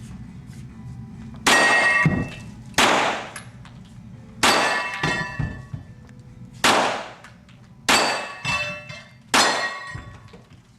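Six handgun shots about one to two seconds apart, each with a ringing metallic clang that is typical of hits on steel targets.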